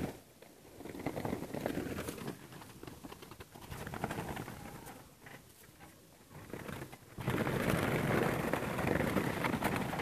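Doves inside a wire-mesh cage trap flapping and scuffling against the wire as a hand reaches in to catch one. Faint and intermittent at first, then louder and more continuous from about seven seconds in.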